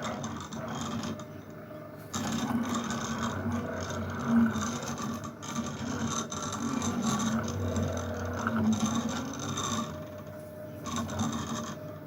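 Home-built CNC machine running a job: the stepper motors driving the ball screws whine and buzz, the tone sliding up and down in pitch as each axis speeds up, slows and changes direction, along with scraping from the tool on the work.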